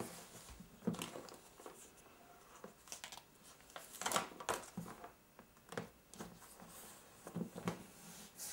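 AED electrode pads being peeled off their backing liner and pressed onto a CPR manikin's chest: faint peeling, crinkling and handling rustles with a few short taps.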